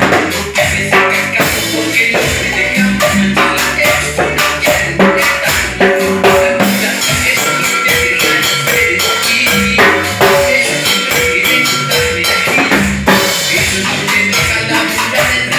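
Timbales with a mounted cowbell struck with sticks in a steady stream of rapid hits, played along with a cumbia recording whose held melodic notes run underneath.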